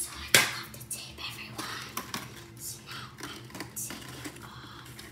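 Small plastic makeup items being handled in a makeup case: light clicking and rustling, with one sharp, loud clack about a third of a second in.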